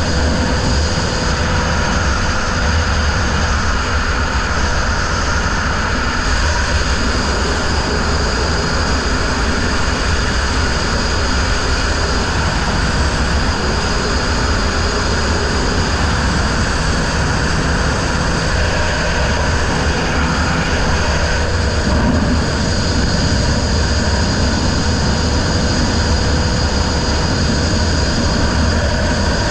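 Racing riverboat's outboard engine running steadily at speed, heard from aboard the boat: a constant low drone with a thin steady whine over it.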